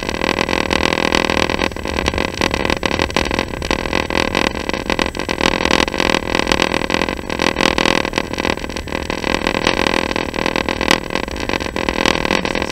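Passenger train running, heard inside the carriage: a steady rumble with continuous quick rattling and clicking.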